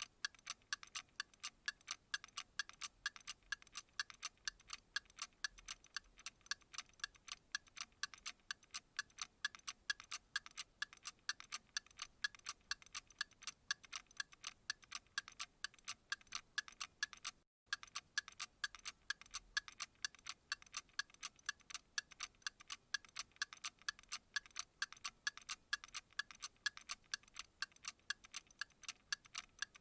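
Clock ticking steadily in a fast, even rhythm of light, crisp ticks, broken by a split-second gap a little past the middle.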